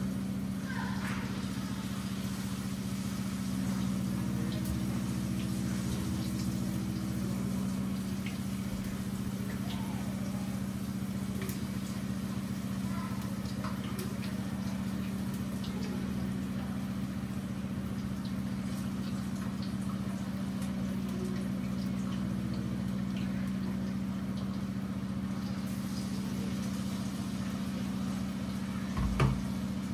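Steady low mechanical hum under the faint hiss and crackle of battered potato slices deep-frying in a pot of oil. A single knock near the end.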